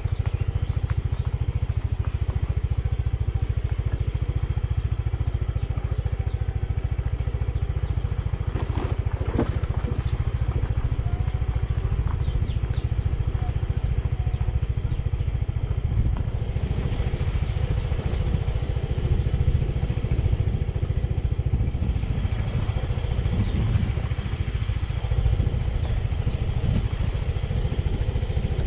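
Motorbike engine running steadily on a rough dirt trail, under a heavy low rumble, with a few sharp knocks about nine to ten seconds in.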